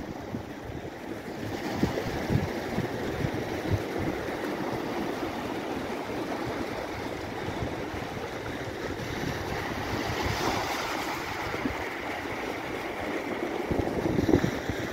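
Small waves breaking and washing up on a pebble beach, with gusts of wind rumbling on the microphone.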